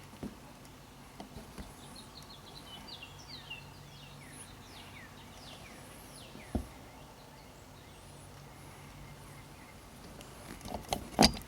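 Faint birdsong: a run of short falling chirps repeated for several seconds. A single knock sounds about six and a half seconds in, and a few louder knocks come near the end.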